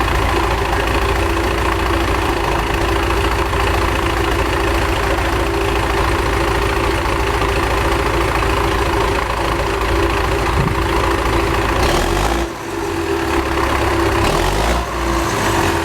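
Old MTZ (Belarus) tractor's diesel engine running steadily, with a low rumble; the sound dips briefly about twelve seconds in and again near the end.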